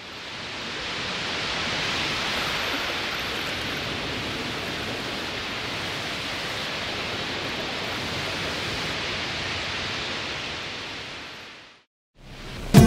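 A steady rushing hiss of noise fades in over the first two seconds, holds even, and fades out about a second before the end. After a short gap, loud hip-hop music with a heavy beat cuts in near the end.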